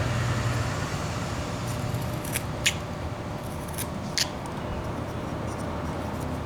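A few short, sharp scrapes of a carving knife slicing into a small wooden figure, over a steady background hum.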